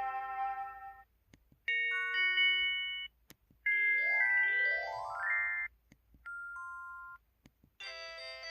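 A series of short electronic melodic alert tones from an MS500 mobile phone's message-alert set, played one after another with brief gaps. One chime fades out, a short chime follows, then a quick rising run of notes, a short two-note tone, and another alert begins near the end.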